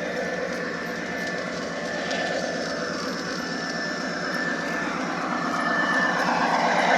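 G-scale model train running on garden track, a steady motor and wheel rumble with a thin high whine, growing louder about five seconds in as it comes closer.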